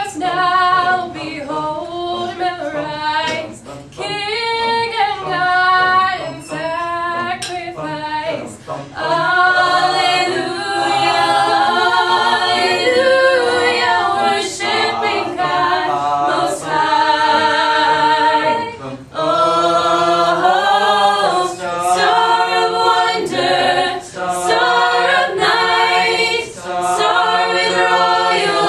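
Mixed-voice high-school a cappella choir singing in harmony without instruments, in short phrases with breaks at first, then fuller, longer-held chords from about nine seconds in.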